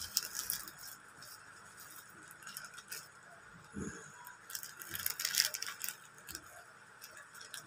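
Plastic packaging crinkling and rustling in short, scattered bursts as a black plastic mailer pouch is handled, with a soft knock about four seconds in.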